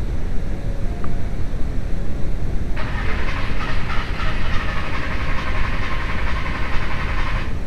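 VW T4 2.5-litre engine being cranked on the starter after running out of fuel, with fuel pressure just beginning to climb. There is a steady low rumble throughout, and about three seconds in a harsher, higher-pitched noise joins it and stops shortly before the end.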